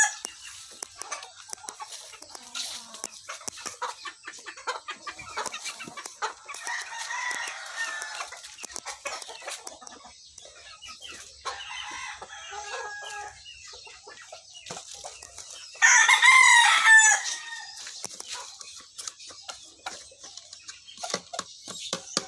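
Gamecock roosters crowing and clucking. Fainter calls come from birds in the pens, then one loud, close crow lasting under two seconds sounds about sixteen seconds in.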